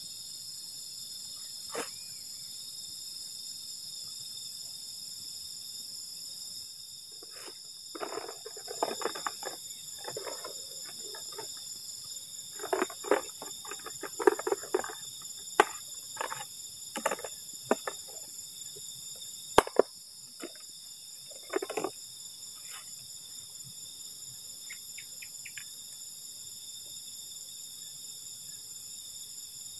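Steady night chorus of crickets and other insects: a dense high trill in several layered bands. From about 7 to 22 seconds in, short rustling and handling noises come and go, with one sharp click about 20 seconds in.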